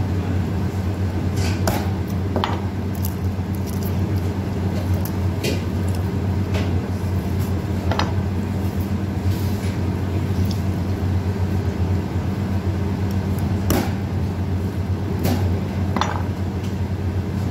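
Steady low machine hum throughout, with a few scattered short clicks and knocks from chicken pieces being handled on a plastic cutting board.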